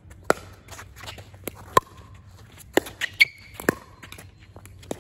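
Pickleball rally: about six sharp, irregularly spaced pocks of paddles striking the plastic ball and the ball bouncing on the hard court.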